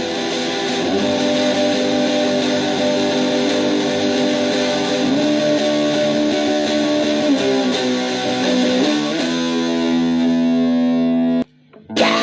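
Instrumental break of a rock song: distorted electric guitar holding long notes that shift pitch a few times. The music cuts out abruptly for about half a second near the end, then strummed chords come back in.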